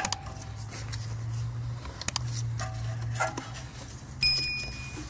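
Mouse-click sound effects from a subscribe-button animation, ending in a bell chime about four seconds in. Beneath them are light scraping and handling noises from a rubber hose being worked onto a carbon-fibre air intake, over a low steady hum.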